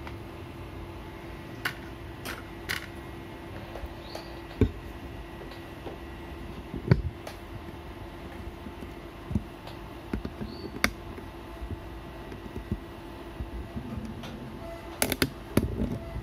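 Room tone with a steady low hum, broken by a few scattered faint clicks and knocks and a short run of them near the end.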